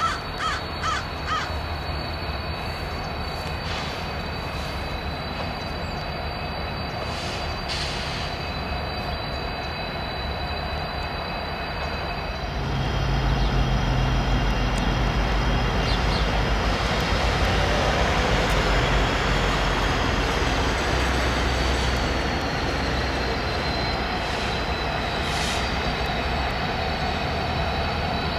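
Norfolk Southern diesel freight locomotives approaching slowly, their engine rumble swelling about twelve seconds in as the lead units draw near. A crow caws a few times at the start.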